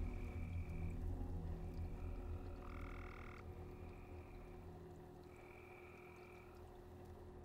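Faint frogs trilling at night, one call after another, each about a second long with short gaps, over a low steady hum. The call a little before the middle is the loudest.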